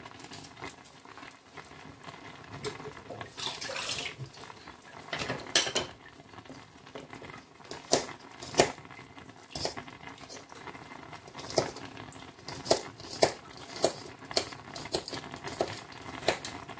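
Pot of turkey with blended pepper and onion and seasoning on the stove, giving irregular sharp pops and clicks with a short stretch of hiss about three and a half seconds in.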